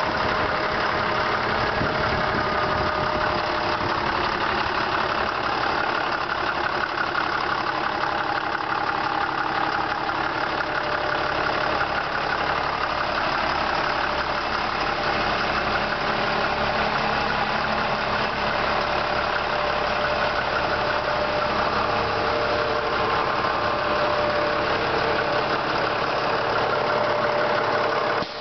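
Diesel engine of a yard truck (yard mule terminal tractor) idling steadily.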